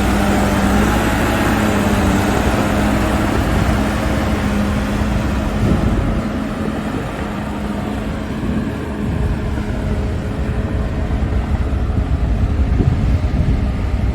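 Caterpillar D5G XL crawler bulldozer's diesel engine running steadily under load as it pushes soil with its blade, the engine note easing slightly about midway and building back up near the end.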